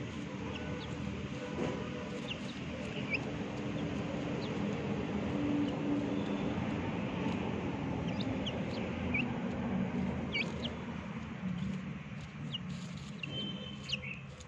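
A steady low engine-like hum runs throughout. Scattered short, high bird chirps sound over it, and a brief double chirp comes near the end.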